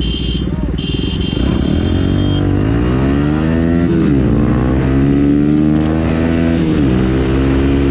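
Bajaj Pulsar NS 125's single-cylinder engine accelerating hard from a standing start in a drag race. The revs climb and drop sharply at two gear shifts, about four and about seven seconds in.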